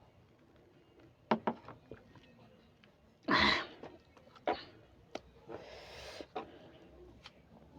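Close-up eating sounds of spicy instant noodles: scattered mouth and lip clicks and a hissy slurp, with one loud short burst a little over three seconds in.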